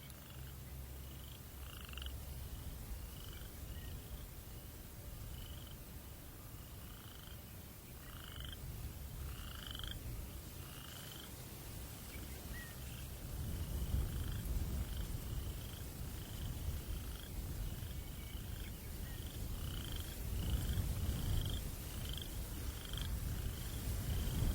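Short repeated calls from a night creature, about one to two a second, each with a higher and a lower pitch together. Under them runs a low breeze rumble that grows louder about halfway through.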